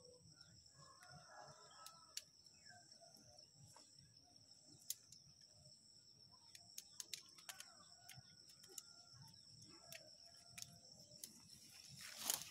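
Quiet garden ambience: a steady high-pitched insect drone with scattered faint ticks, and a distant rooster crowing about a second in. Near the end there is a brief rustle as a hand handling leaves moves close to the microphone.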